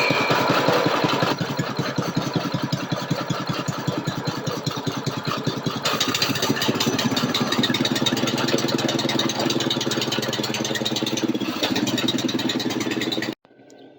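Brand-new 208cc 6.5 hp single-cylinder engine on a mini bike running on its first start, with a rapid, even firing beat. Its tone changes about six seconds in, and the sound cuts off suddenly near the end.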